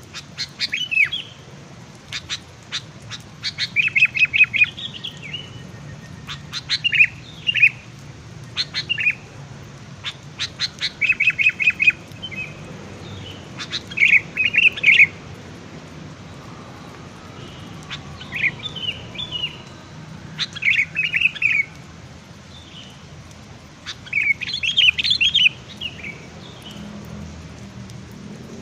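Small songbirds calling in repeated bursts of sharp chirps and short rapid trills, one phrase every few seconds.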